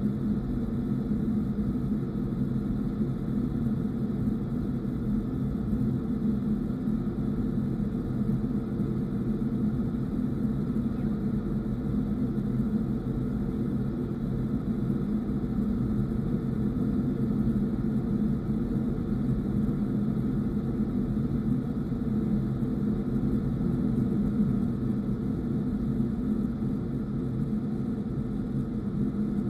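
Steady cabin drone inside a Ryanair Boeing 737-800 on its descent to land: engine hum and air rushing past the fuselage, heard from a window seat. The level holds even throughout, with no changes in engine power.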